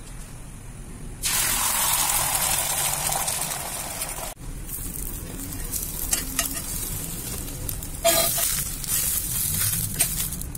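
Beaten egg frying in hot oil in a seasoned cast iron skillet: a loud sizzle starts suddenly about a second in, then steady frying with a metal spoon clicking and scraping against the pan, and another louder surge of sizzling near the end.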